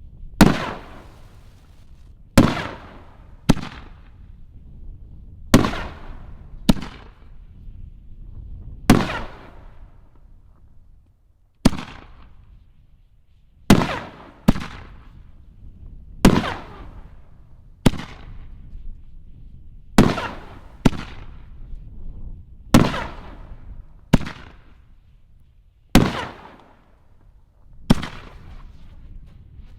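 Flawless 5-inch canister firework shells going off in quick succession: about seventeen sharp bangs, roughly one every one to two seconds, some in close pairs, each trailing off in an echoing rumble.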